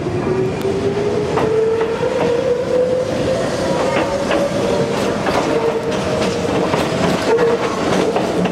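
Electric train of the Konan Railway Owani Line pulling away, its traction motors whining as the pitch rises steadily over the first several seconds and then levels off, with the wheels clicking over rail joints.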